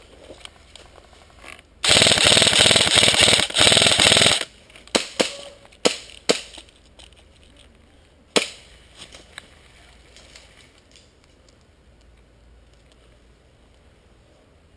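Airsoft rifle firing a long full-auto burst of about two seconds, with a brief break near its end, followed by several single sharp cracks.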